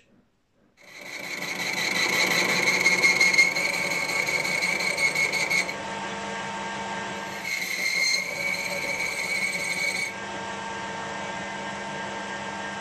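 Metal lathe motor starting about a second in and then running steadily, turning a gear ring in its chuck. Twice, for a few seconds each time, a high steady whine with overtones rises over the motor as the tool cuts a recess in the ring's edge, then drops back to the plain running sound.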